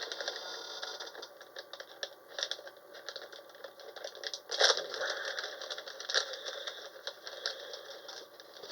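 Handling and opening a small collectible fossil pack: a rapid, uneven run of small clicks and crinkles, with a louder crackle about four and a half seconds in.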